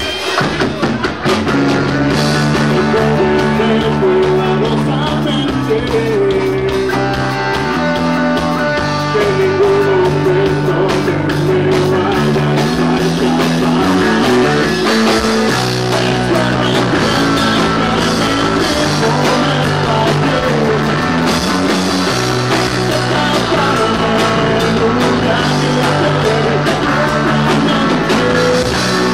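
Live rock band playing a song: electric guitars and a Sonor drum kit with a man singing, loud and without a break.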